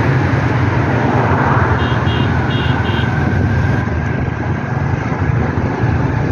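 Steady road and engine noise of a moving vehicle, heard from on board as it drives along. About two seconds in there are four short high beeps.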